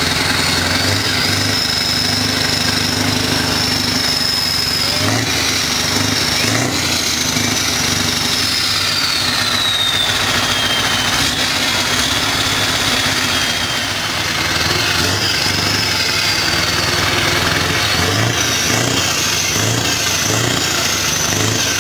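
Diesel truck engine running steadily at idle.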